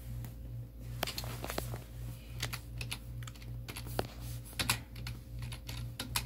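Computer keyboard keys clicking in slow, irregular typing, one key at a time, over a steady low hum.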